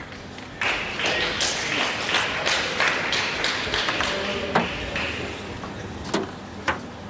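Spectators clapping in a sports hall for a few seconds after a table tennis point. Then come a few separate sharp taps, like a table tennis ball bouncing.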